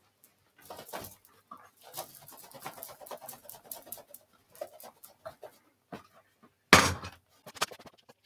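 Hands tousling and flicking up a mannequin head's freshly cut hair, in a run of soft, irregular rustles and small clicks. There is a louder, short burst of noise a little before seven seconds in.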